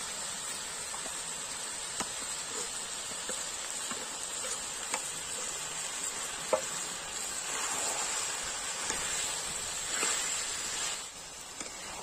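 Chicken and masala paste sizzling in hot mustard oil in a kadhai, with a metal spatula clicking and scraping against the pan a few times as the masala is stirred in.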